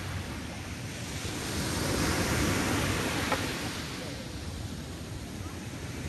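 Gentle ocean waves breaking and washing up a sandy beach. One wash swells about a second and a half in and recedes after about three and a half seconds.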